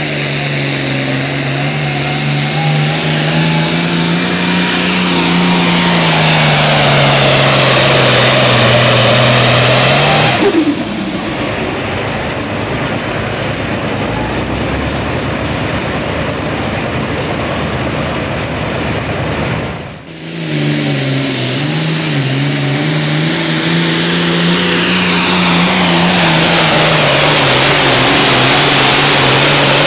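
Turbocharged diesel International pulling tractors under full power, dragging a weight-transfer sled. The first engine holds a steady, slightly wavering note and then cuts out about ten seconds in. A rougher, quieter stretch without the engine note follows. About twenty seconds in a second tractor starts its pull, its note dipping briefly and then holding loud.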